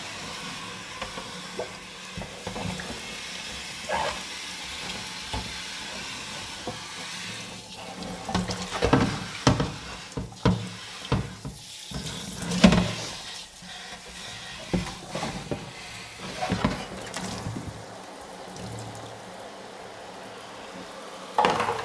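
Water sloshing and splashing in a plastic tub as a potter's wheel splash pan and tools are scrubbed with a sponge, over a steady sound of running water. Scattered knocks of plastic against the tub come mostly in the middle stretch.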